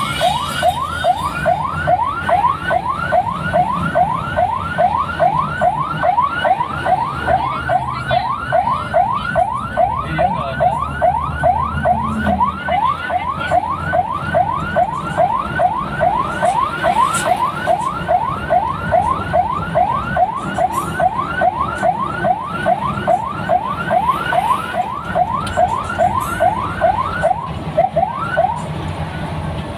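Electronic vehicle siren sounding a fast yelp: short rising sweeps, about two a second, stopping shortly before the end, over the low noise of the moving vehicle.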